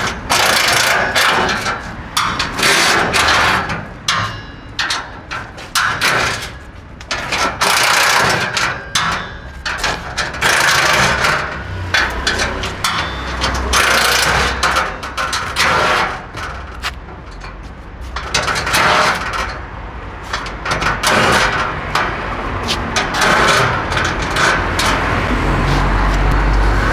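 Cordless drill-driver running in many short bursts, backing the screws out of a steel motorcycle shipping crate, with sharp metal knocks in between.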